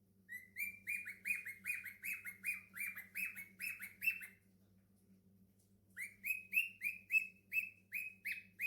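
Cockatiel chirping: quick, evenly repeated short notes, about three a second, in two runs separated by a pause of under two seconds.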